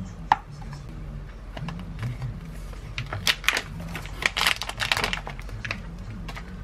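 A single sharp click, like a wooden spatula knocking a glass mixing bowl, then a plastic food pouch being torn open and crinkled in a run of quick crackles, over a steady low hum.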